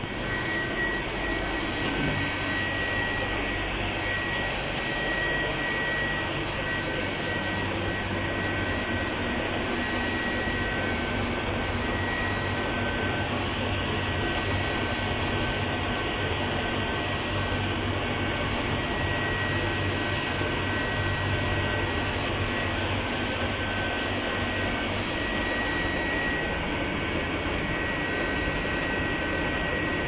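Steady running noise of factory machinery in a membrane keypad print shop: a low hum with a thin high whine that comes and goes.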